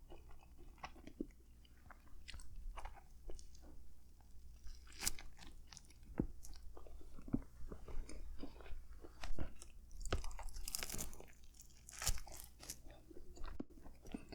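A person chewing a soft, soggy turkey hoagie close to the microphone: wet mouth sounds and small crunches from the bread's crust, in irregular bites.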